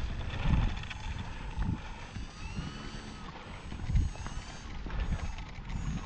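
Wind buffeting the microphone in gusts, a low rumble that swells and fades, strongest about half a second in and again about four seconds in.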